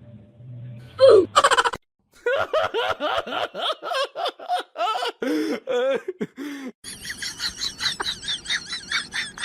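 Laughter-like vocal pulses, about four or five a second, from about two seconds in; from about seven seconds in they turn higher and quicker.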